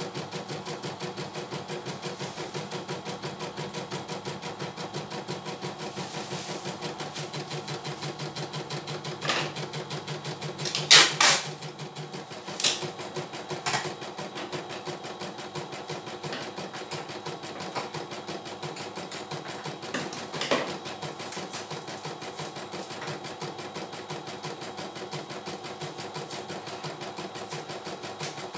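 CNY E900 computerised embroidery machine stitching out a design: a fast, even needle chatter, with a handful of louder clacks, the loudest about eleven seconds in. A lower hum under the stitching drops out about twelve seconds in.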